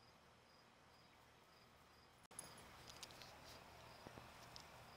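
Faint crickets chirping steadily, short high pulses about three times a second. Scattered faint rustles and ticks join in during the second half.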